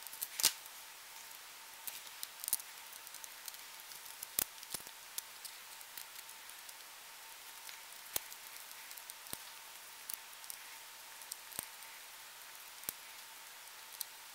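Small Phillips screwdriver turning long screws through a Blade 400 RC helicopter's tail fin into the tail case: faint, scattered clicks and ticks of the screwdriver, screws and parts being handled.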